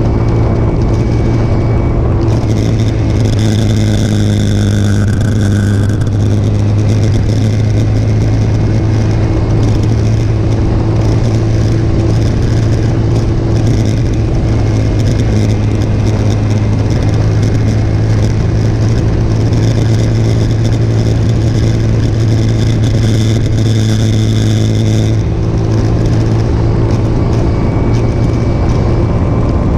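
Motorcycle engine running steadily at cruising speed under wind and road noise. A high whine joins twice, about three seconds in and again about twenty seconds in.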